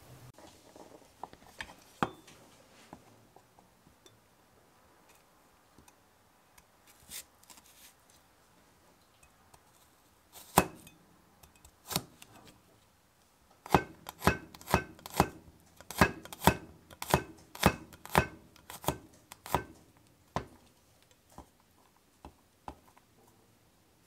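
Knife chopping on a cutting board: a few single cuts, then a quick run of about sixteen chops, roughly two a second, starting about fourteen seconds in.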